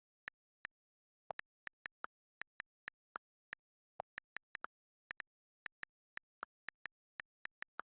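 Key-press click sounds of a phone's on-screen keyboard during fast typing: short, sharp clicks at an uneven pace of about four a second, a few of them lower in pitch than the rest.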